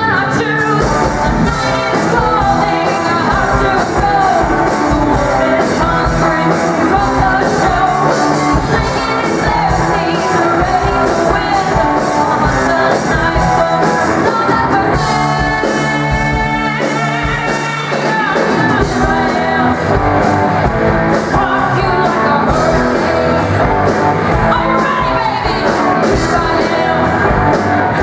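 Rock song played loud, with a singer, drums and a steady beat. A long, wavering held note stands out in the middle.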